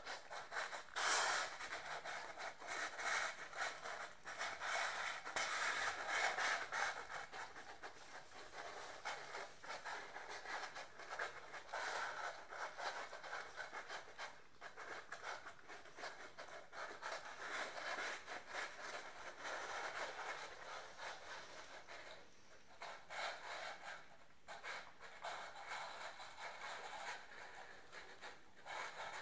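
Several five-week-old golden retriever puppies crunching and chewing dry kibble from plastic bowls: a dense, unbroken clatter of small crunches from many mouths at once.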